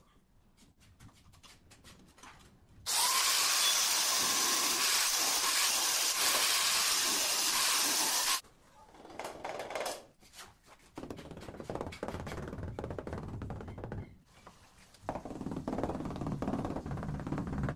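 Electric angle grinder cutting a ceramic tile: it spins up with a rising whine about three seconds in, runs loud and steady through the cut, and stops abruptly about five seconds later. Later comes quieter knocking from a rubber mallet tapping wall tiles into the adhesive.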